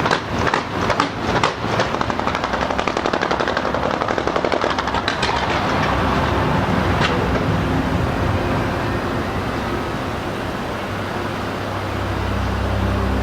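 Fireworks going off: several sharp bangs, then a fast crackling run for a few seconds and one more bang about seven seconds in. Afterwards a low, steady rumble swells near the end.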